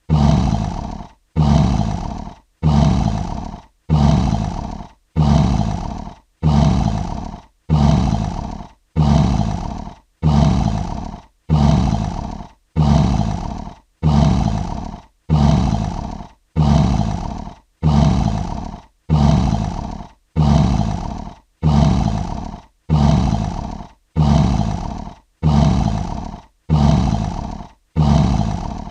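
Lion roaring, the same short call repeated some twenty times at an even pace, a little under one every second and a half. Each call starts sharply and fades out, with a brief silence before the next: a looped roar sound effect.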